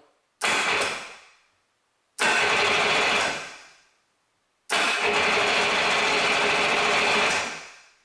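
Electric starter cranking the Yamaha Wavejammer's engine in three bursts, a short one, a second of about a second and a longer one of nearly three seconds, each spinning down when released without the engine catching. The starter now turns the motor over after the faulty Hitachi starter solenoid was replaced.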